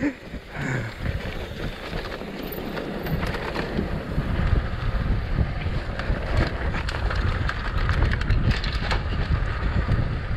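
Wind buffeting the microphone over the noise of a mountain bike descending a dirt trail, with tyre rumble and frequent clicks and rattles from the bike. It grows louder about two seconds in as speed builds.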